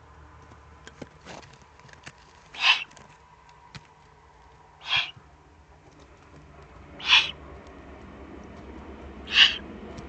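Eurasian eagle-owl chicks giving their hoarse, hissing begging call four times, one about every two and a quarter seconds, with faint ticks and rustles between calls.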